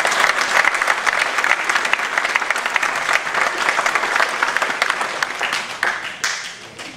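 Audience applauding, dense at first, then thinning and fading to scattered claps near the end.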